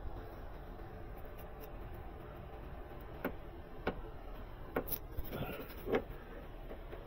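A handful of short, sharp clicks and knocks from hand work on the car's steering parts, about five of them between the middle and the end, over a faint steady hum.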